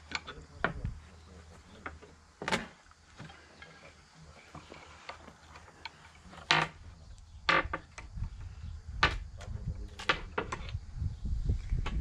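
Claw hammers striking nails into wooden boards: about eight sharp single blows at irregular intervals, several seconds apart at first and closer together near the end. A low rumble is there underneath in the second half.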